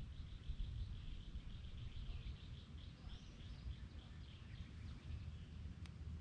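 A small animal calling outdoors with a steady train of short high chirps, about four a second, fading after about four seconds, over a constant low rumble.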